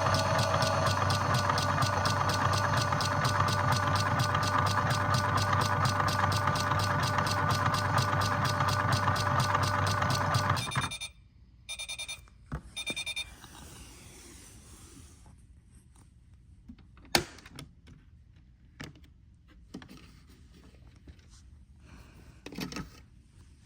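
Washing machine running with a steady mechanical whine and a fast rhythm, which cuts off abruptly about eleven seconds in. A few short electronic beeps follow, then scattered faint clicks and one sharp click.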